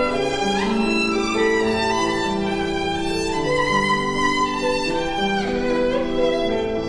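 Background music: a violin playing a melody of long held notes, with some sliding between notes, over an accompaniment.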